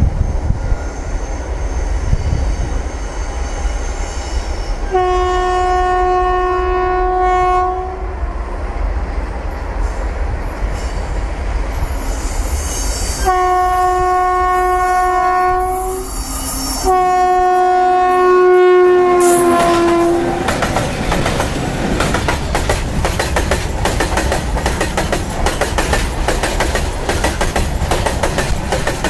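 The twin electric locomotives of a freight train sound three long horn blasts of about three seconds each, the last one sagging in pitch as it ends. The BOXN open wagons then roll past close by, their wheels clattering rhythmically over the track.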